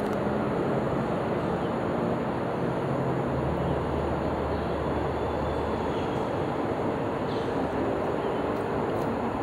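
Steady low rumble of a passing vehicle, with a faint hum beneath it.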